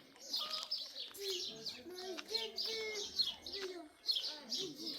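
Small birds chirping and twittering in quick repeated high notes, with faint voices underneath.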